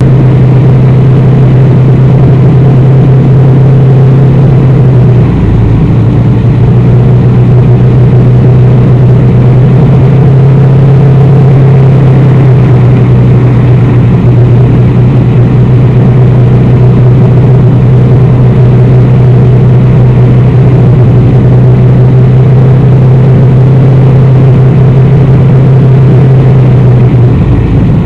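Loud, steady rushing noise of a vehicle driving in heavy rain, picked up by a dash camera, with a constant low hum running under it that breaks briefly about five seconds in and again near the end.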